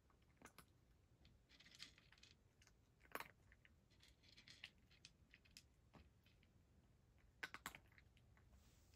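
A cat eating dry kibble from a bowl: faint, scattered crunches and clicks, with a short cluster about three seconds in and another two thirds of the way through.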